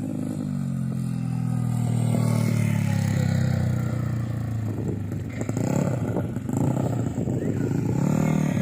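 Yamaha Mio scooter engine, bored up to 200 cc for drag racing, running at a fast steady speed, then blipped up and down several times from about five seconds in.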